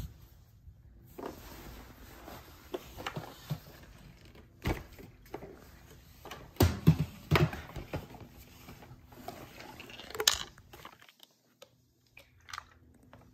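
Handling noise from a Tineco Floor One S5 vacmop's removed brush roller and cleaner head: scattered plastic knocks and clicks with rustling between, the loudest few knocks about seven seconds in.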